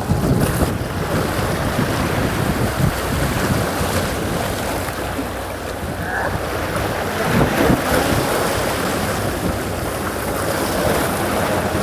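Wind buffeting the microphone over sea water washing and lapping, a steady rough noise with gusts.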